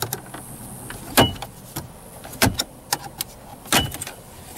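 Dodge Challenger's plastic dash bezel being pried off by hand: about four loud snaps, roughly every second and a quarter, as its retaining clips pop loose, with smaller plastic clicks and brief squeaks between.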